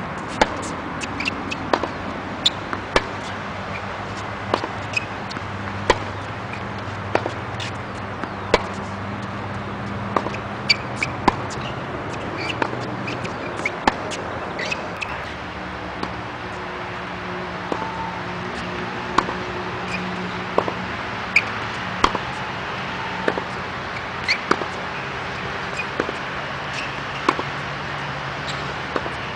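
Tennis balls struck by a racket and bouncing on a hard court during a rally: sharp pops every second or so, irregularly spaced, over a steady low hum.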